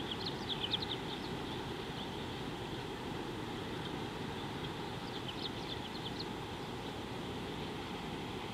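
A bird chirping in two short rapid bursts of high notes, one at the start and another about five seconds in, over a steady low outdoor rumble.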